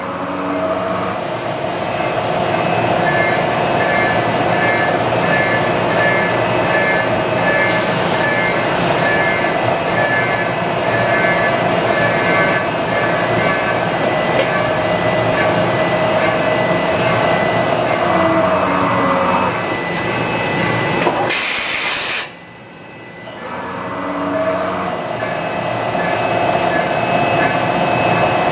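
Mori Seiki SV-50/40 CNC vertical machining center running under power: a steady mechanical whine with several steady tones that builds up at the start. About 21 seconds in there is a short loud rush of noise, then the sound drops away and builds back up over a few seconds.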